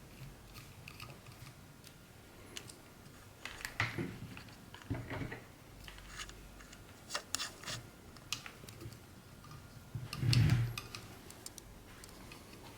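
Light clicks, taps and rustling of PC parts being handled during assembly, with a louder bump about ten seconds in.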